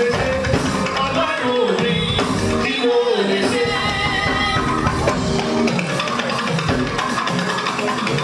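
Church choir singing live, several voices together, over drums and band accompaniment.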